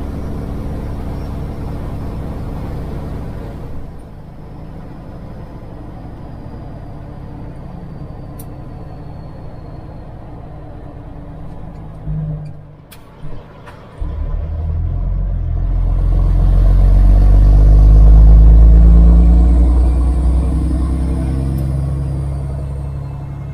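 Kenworth W900 semi truck's diesel engine heard from inside the cab. It runs steadily, then eases off to a lower note with a faint whine falling in pitch. Around twelve seconds in it briefly drops out with a few sharp clicks, then pulls hard, growing loud to a peak about eighteen seconds in before easing off again.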